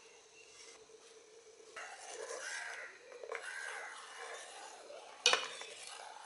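A metal spoon stirring and scraping through boiled orange peel, pulp and liquid in a stainless steel pot. A sharp clink of the spoon against the pot comes about five seconds in and is the loudest sound.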